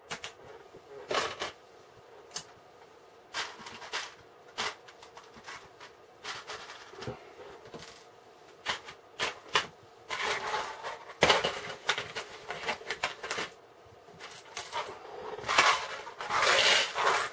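Small plastic building bricks clicking and tapping as pieces are picked out and pressed together, with two stretches of denser rattling as loose parts are rummaged through, near the middle and near the end.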